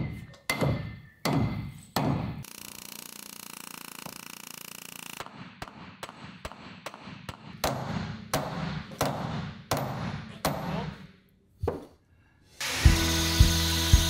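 Hand hammer striking hot bronze rivets to peen them over, with an anvil held against the other end as a bucking dolly; sharp ringing blows, about two a second, broken by a few seconds of steady hiss about two seconds in. Near the end, music with a steady beat comes in.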